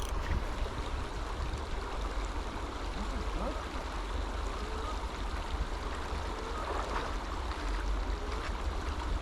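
River water flowing steadily, with a low rumble underneath.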